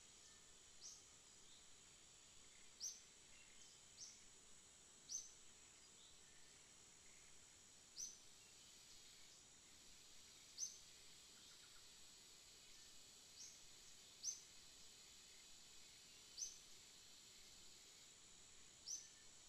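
Quiet forest ambience: about ten short, high chirps at irregular intervals of one to three seconds, over a faint, steady, high-pitched insect drone.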